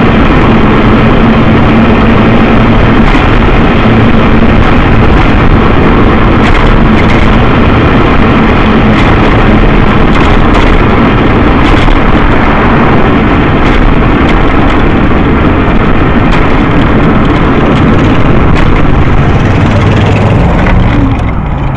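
Scooter on the move, heard through its own small mounted camera's microphone: a loud, steady running noise with a low hum under it, easing a little near the end.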